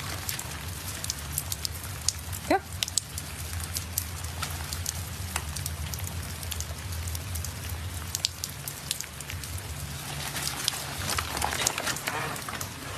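Steady rain falling, with many sharp drop ticks close by.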